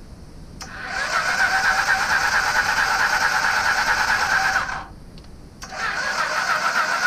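Honda CB250N Superdream's air-cooled parallel-twin engine turned over on its electric starter motor without firing, in two runs: about four seconds, a short pause, then about a second and a half more. This is a spark test with one plug out and held against the cylinder head.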